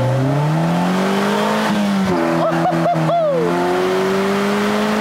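The Polaris Slingshot's GM 2.4-litre Ecotec four-cylinder engine accelerating hard through the five-speed manual. It climbs in pitch, drops with an upshift about two seconds in, then climbs steadily again in the next gear.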